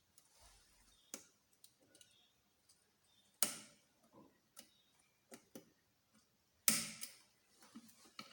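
Small metal engine parts and tools being handled on a workbench: scattered light clicks and clinks, with two louder metallic clanks that ring briefly, about three and a half and six and a half seconds in.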